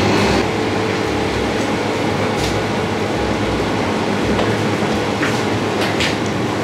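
Steady rumbling noise of a working restaurant kitchen, with a few short sharp clinks about two and a half seconds in and again near the end.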